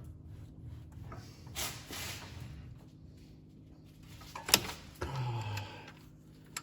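Hand tools on metal while unbolting a thermostat housing: a scrape about a second and a half in, then one sharp metallic click past four seconds, over a steady low hum.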